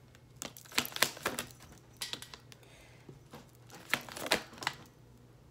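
Tarot deck being shuffled by hand, the cards tapping and slapping together in three short runs of quick clicks with brief pauses between.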